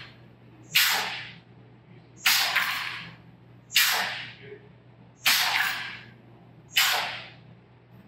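Pneumatic poker chip dispenser cycling: a sharp burst of air hiss that dies away within about half a second, repeating about every one and a half seconds, five times. Each burst is the air valves firing the escapement cylinders that push chips out.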